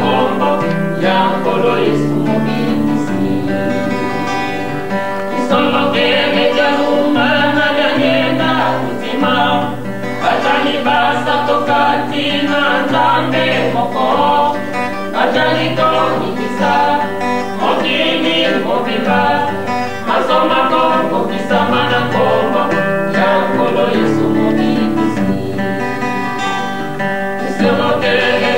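Church music: voices singing a hymn over plucked guitar accompaniment and a steady bass line.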